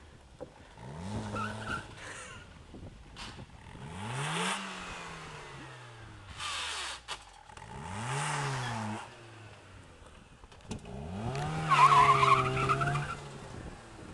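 Fiat Uno petrol engine revving up and falling back again and again as the car is thrown around on loose gravel, with rushes of gravel and tyre noise between the revs. The loudest rev comes near the end.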